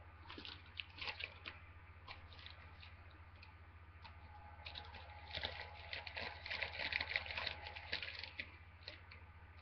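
Packaging being unwrapped by hand, crinkling and crackling in quick bursts that grow busiest in the second half. A steady low electrical hum runs underneath.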